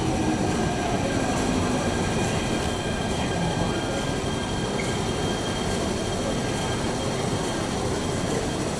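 MTR K-Train metro train running through an underground station platform behind the platform screen doors: a steady rumble of wheels on rail. A motor whine falls in pitch over the first second or so, and faint steady high tones run above it.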